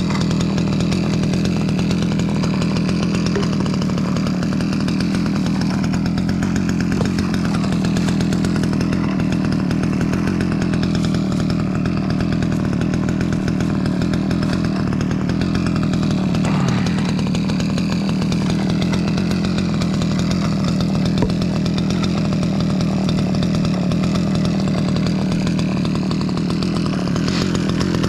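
Small Stihl two-stroke chainsaw running at speed while cutting ash wood. The engine note stays steady except for a brief dip in pitch about two-thirds of the way through.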